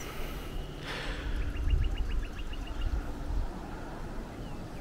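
High-voltage overhead power lines buzzing with a faint steady hum under a low rumble; the speaker puts the buzzing down to the rain wetting the lines. About a second and a half in there is a quick run of high ticks lasting just over a second.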